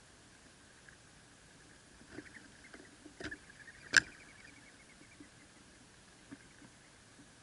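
Eastern gray squirrel foraging in seed right by the microphone: scattered small clicks and rustles starting about two seconds in, with one sharp tap near the middle.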